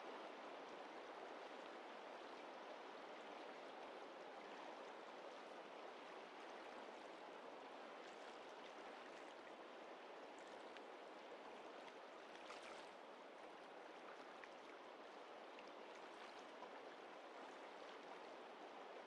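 Faint, steady rush of river water flowing past a rocky bank.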